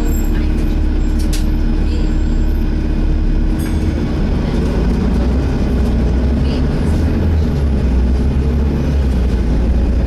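Volvo B7TL double-decker bus's diesel engine running under way, heard from inside the passenger saloon as a heavy low drone, with a few light rattles. A steady hum over it stops about four seconds in.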